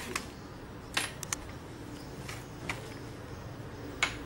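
A few short, light metallic clicks and taps of tools and a copper strap being handled against a transformer's iron core, the sharpest about a second in and near the end, over faint background noise.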